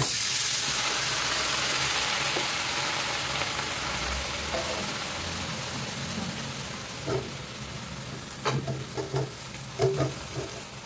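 Wet green vegetable leaves hit a hot wok and set off a loud sizzle that starts suddenly and slowly dies down. Toward the end, a metal spatula scrapes and knocks against the wok a few times as the greens are stirred.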